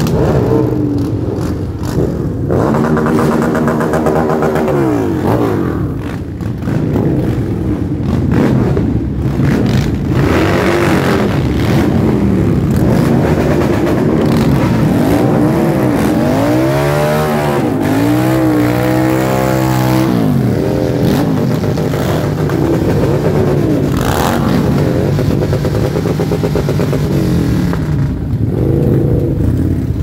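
Several cruiser motorcycle engines running together and being revved again and again, their pitch rising and falling over a constant rumble.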